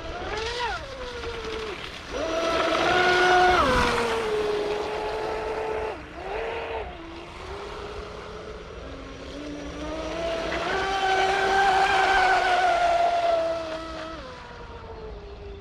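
Traxxas M41 RC speedboat's brushless electric motor whining at speed on a 6S battery, in throttle bursts. There is a short blip at the start, a strong burst about two seconds in, a brief one around six seconds, and a long pass from about ten to fourteen seconds whose pitch holds high, then falls away, over the hiss of the hull on the water.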